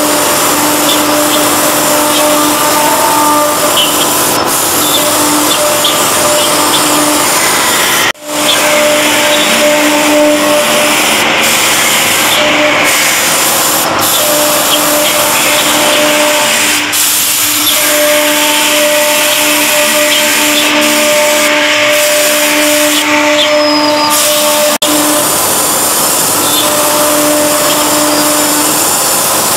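Two spindles of a CNC wood router running, a steady whine with the rasp of the bits engraving an MDF panel. The whine fades and returns now and then, and the sound breaks off briefly about eight seconds in.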